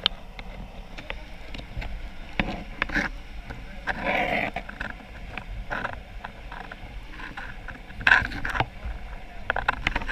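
Water splashing and sloshing in irregular bursts, loudest about four seconds and again about eight seconds in.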